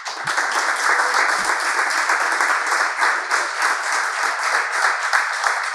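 Audience applauding an award announcement: many hands clapping in a dense, steady patter.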